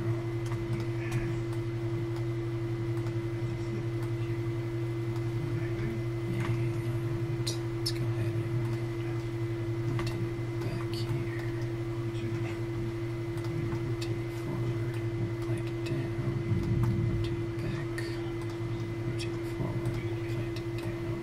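Steady electrical hum from the recording setup, a low drone with a higher steady tone over it, and scattered light clicks of a computer mouse. A brief low bump comes about three-quarters of the way through.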